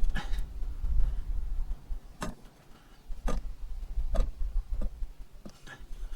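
Plastic gear-oil bottle being squeezed to force oil through its nozzle into the gearbox, its sides giving sharp clicks about once a second over a low rumble.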